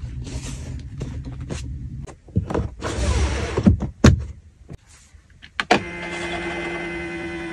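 Clicks and rustling as interior fittings are handled, then a small electric motor whirring steadily for about two seconds before stopping abruptly: the motorised touchscreen rising out of the Toyota Sienna's rear armrest.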